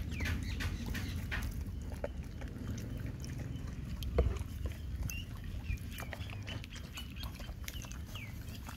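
A dog eating chicken-and-rice soup from a bowl: wet lapping and chewing with quick clicks, densest in the first couple of seconds.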